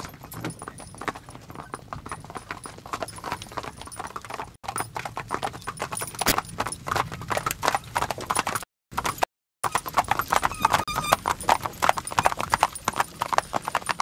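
Hooves of a four-horse carriage team clip-clopping on an asphalt road, a dense, rapid clatter that grows louder as the team comes closer. The sound cuts out twice briefly near the middle.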